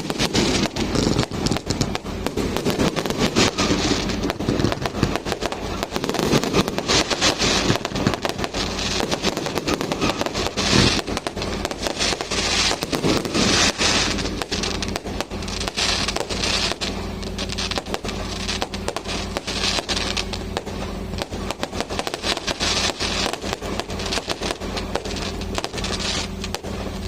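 Strings of firecrackers going off, a dense, irregular rattle of sharp pops.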